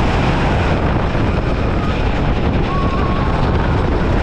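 Wooden roller coaster train with Gravity Group Timberliner cars, heard on board from the back row: a loud, steady rumble of the wheels on the wooden track at speed, with a brief wavering high tone a little under three seconds in.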